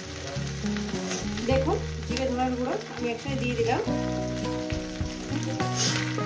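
Vegetables sizzling as they fry in oil in a steel wok, with a few crackles. Instrumental background music of held notes plays along.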